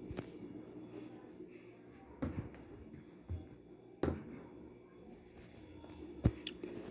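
A handful of separate knocks and thumps over a low steady hum, the loudest about six seconds in.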